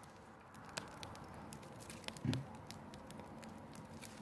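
Campfire crackling faintly, with scattered small pops and a soft low thump about two seconds in.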